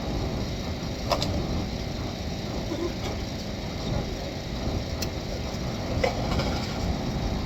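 Steady low rumble of a car's interior, with a few short sharp clicks or knocks: one about a second in, and two more near five and six seconds.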